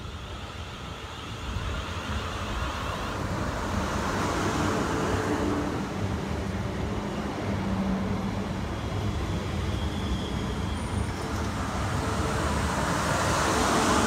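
South West Trains electric multiple unit running past along the platform. A steady rumble of wheels on rail swells about two seconds in and stays loud, with a faint hum from the train's motors underneath.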